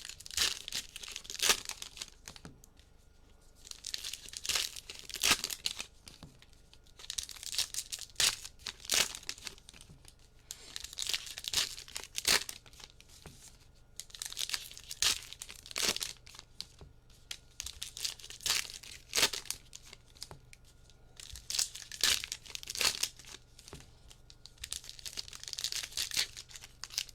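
Foil trading-card packs being torn open and crinkled by hand, in repeated bursts of crackling with short pauses between.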